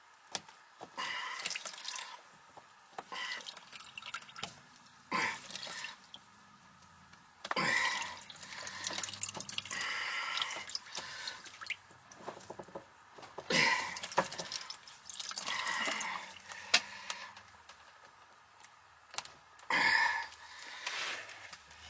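Water splashing and dripping in short bursts a second or two long, with quieter gaps between, at an HVAC air handler's condensate drain.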